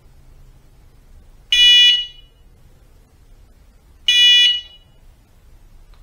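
ROCKBROS electric bike horn sounding two short high-pitched blasts, each about half a second long and a couple of seconds apart.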